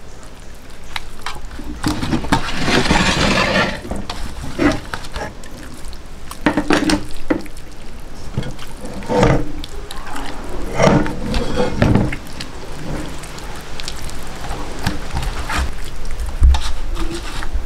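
Hands rubbing wet masala paste into scored chicken pieces in a bowl: irregular wet squishing and smearing, with a few short knocks.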